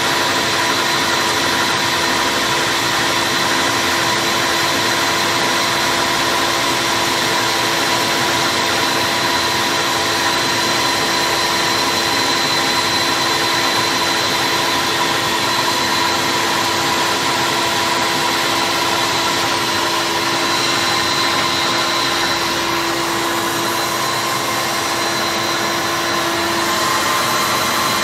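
Stand mixer's motor running steadily with a constant whine as its whisk beats eggs, sugar and orange juice into a thick, creamy cake batter.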